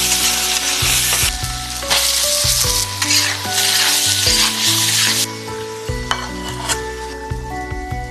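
Small fish frying in hot oil, a loud steady sizzle that breaks off briefly about a second and a half in and stops about five seconds in, over background music with a few light clicks near the end.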